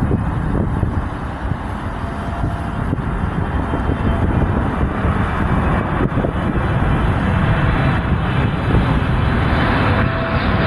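Steady engine rumble of traffic, with a jet airliner's roar building louder over the second half as the plane approaches.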